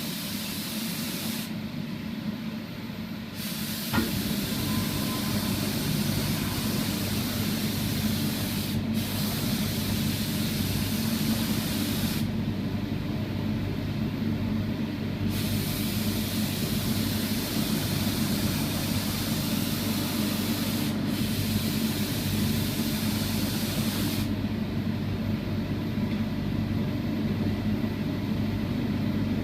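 Spray gun hissing as it sprays sanding sealer, in several long bursts of a few seconds each with short pauses between, over a steady machine hum.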